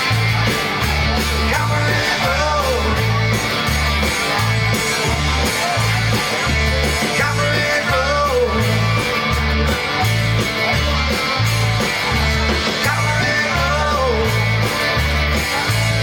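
Rock band playing an instrumental passage: electric guitar over a steadily pulsing bass line.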